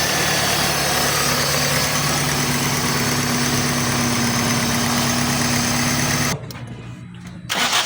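Car engine idling steadily. About six seconds in, the sound cuts off abruptly and comes back a second later.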